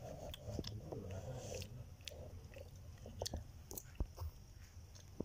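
Faint, scattered small clicks and ticks of peanuts and coconut slivers being dropped and pressed onto a cake on a steel plate, with one sharper click about four seconds in.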